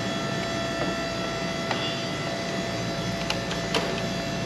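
Steady mechanical hum and whine of a snorkel boom lift's motor running as it raises a load, with a few light clicks and knocks along the way.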